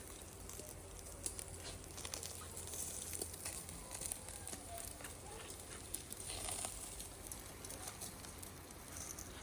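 Charcoal grill crackling, with scattered small pops and a faint sizzle under a steady low hum.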